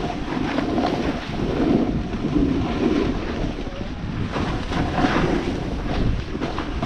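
Wind buffeting an action camera's microphone on a fast run down a snowy slope, with the hiss and scrape of snow under the turns.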